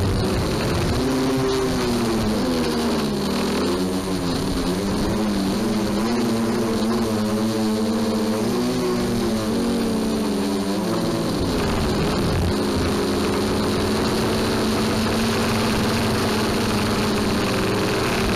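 DJI Flame Wheel multirotor's brushless motors and propellers buzzing, heard from the onboard camera. Several tones rise and fall together as the craft manoeuvres, then hold steadier from about two-thirds of the way through.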